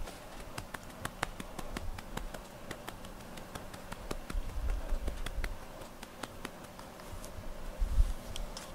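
A hand stroking and patting a cat's fur, heard as many irregular light taps and clicks, with a couple of low muffled bumps about five and eight seconds in.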